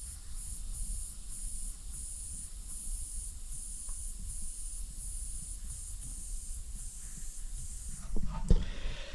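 Compressed air hissing from a slight leak under the regulator of a filled Craftsman 30-gallon air compressor: a faint, high hiss that swells and fades evenly about every three-quarters of a second. A few bumps near the end.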